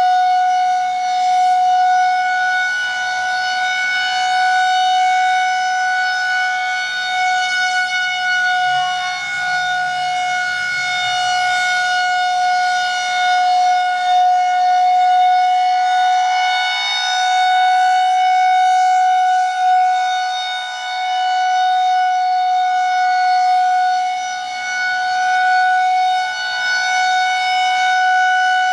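Federal Signal 2001-130 rotating electromechanical siren sounding the full-alert steady tone of a siren test: one unbroken pitch with its overtones, the level swelling and dipping slightly as the head turns.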